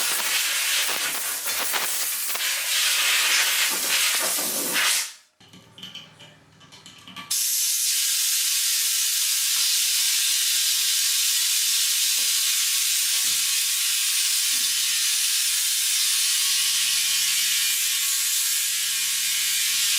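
Compressed air hissing loudly. It cuts off about five seconds in and returns about two seconds later as a steady high hiss.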